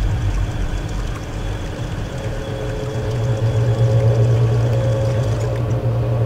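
Low, steady droning hum, joined by a fainter higher tone and swelling slightly about halfway through.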